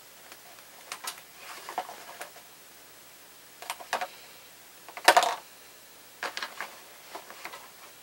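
Scattered light clicks and taps of painting supplies being handled on a tabletop, with a louder knock about five seconds in.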